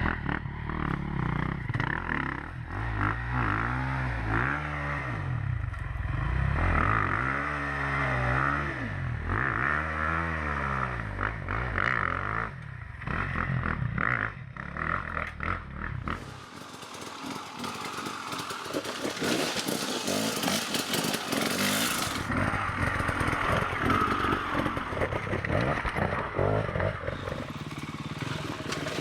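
Off-road motorcycle engine revving up and down repeatedly, its pitch rising and falling. After about sixteen seconds it gives way to a noisier, gritty rush with clattering.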